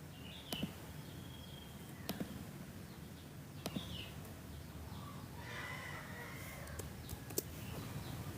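A few sharp computer-mouse clicks spaced a second or more apart, three in quick succession near the end, over a low steady hum, with faint bird chirps in the background.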